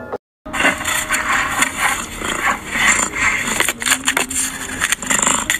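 A brief gap of silence, then a dense scraping and rustling noise with scattered clicks.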